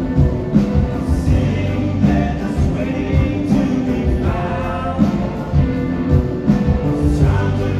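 Live concert music from a band playing through a large PA system: singing, with several voices together, over a steady bass-heavy beat.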